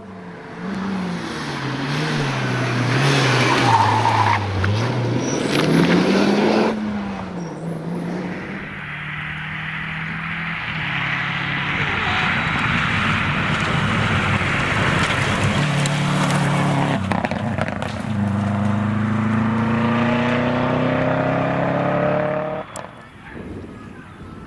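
Rally car engines at full throttle: first an engine revving up and down through quick gear changes with tyre noise on a loose surface, then a Subaru Impreza WRX's turbocharged flat-four running hard and steady, rising in pitch as it accelerates, and cutting off suddenly near the end.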